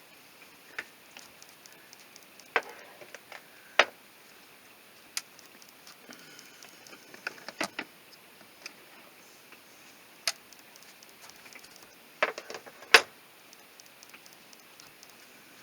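Food containers, jars and packages being handled in and out of an RV refrigerator, making irregular sharp clicks and knocks. Some come singly and some in quick clusters, with the loudest knocks just before four seconds in and about thirteen seconds in.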